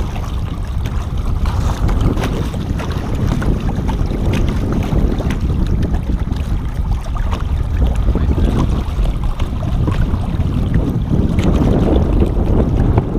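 Water sloshing and splashing around a striped bass held by the lip at the boat's side, with steady wind rumble on the microphone and many small crackling splashes.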